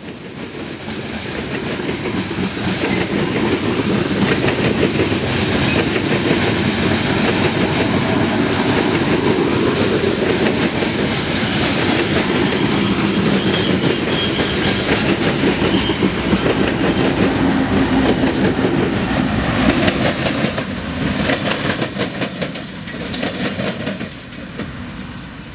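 A freight train of GATX open hopper cars rolling past close by, its steel wheels clacking over the rail joints in a steady clickety-clack. The sound builds over the first couple of seconds and eases off near the end.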